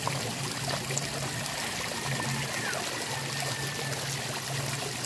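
Steady splashing and trickling of water falling into a koi pond.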